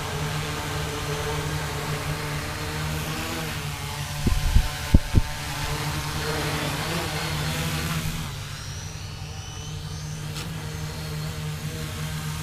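Tricopter's electric motors and propellers buzzing as it lifts off and flies, with a few loud low thumps about four to five seconds in. The sound gets quieter about eight seconds in, with a faint higher whine.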